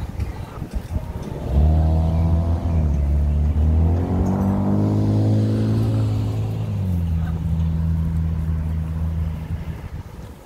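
A motor vehicle's engine running close by: a low, steady hum that swells and rises in pitch about halfway through, then eases back down and fades near the end. Wind buffets the microphone before the engine sound comes in.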